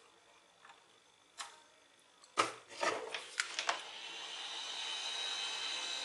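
A few light clicks and a quick run of knocks, then a heat gun switching on about four seconds in and running steadily, a fan hiss with a high whine, aimed at heatshrink tubing on a headphone cable.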